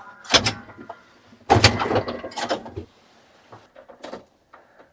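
Clicks, knocks and rattles from inside a John Deere tractor cab as someone moves about and works its controls, with no engine running. The loudest handling comes about one and a half to three seconds in, followed by a few faint clicks.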